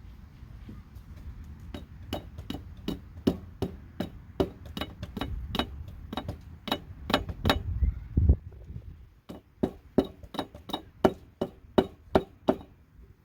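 A run of steady hammer blows, about two a second, with a short break about two-thirds of the way through before the blows resume.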